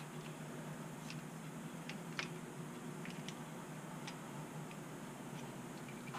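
Light metal clicks and ticks, irregularly spaced, from a 6.4 Hemi piston and connecting rod assembly being handled and turned by hand, over a faint steady hum.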